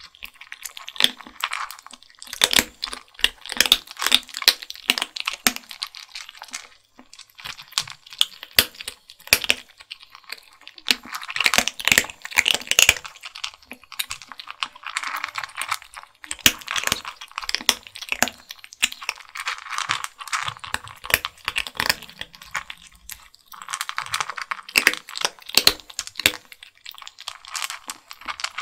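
Two kittens loudly crunching and chewing dry kibble: a dense run of quick, sharp crunches with brief lulls about 7 and 16 seconds in.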